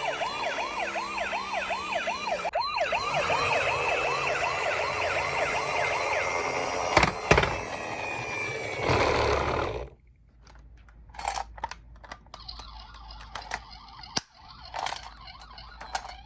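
Electronic sirens of toy ambulance minicars sounding, more than one at once, a fast wail that rises and falls several times a second. They cut off suddenly about ten seconds in, leaving only faint scattered clicks and knocks.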